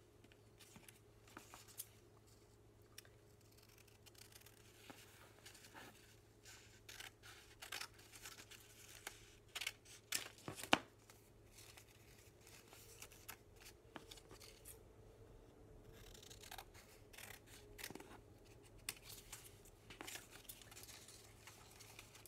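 Scissors snipping through folded paper: a scattered run of faint short snips with paper handling between them, busiest around the middle.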